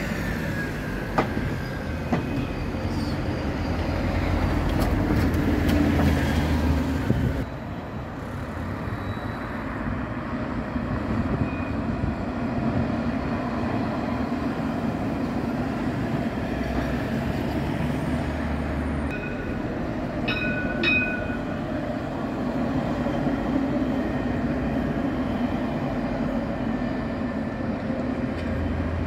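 Street traffic: a heavy vehicle rumbles past in the first quarter, then an Alstom Citadis tram rolls by on its rails over a steady traffic hum. About two-thirds of the way through come two short high-pitched tones.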